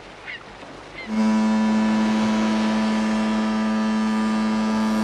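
Cruise ship's horn sounding one long, steady blast that starts about a second in, over wind and wave noise.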